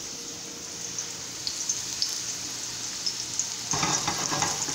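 Thin sweet potato slices frying in hot oil in a stainless steel skillet: a steady sizzle with fine crackling.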